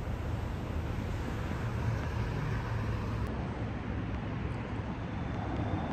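Steady road traffic noise: a low rumble with a hiss above it.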